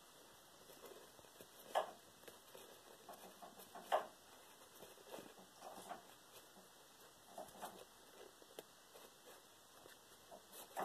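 Faint scratching and light tapping of leopard geckos' feet on a clear plastic tub as a mating pair shifts about, with two sharper taps about two and four seconds in.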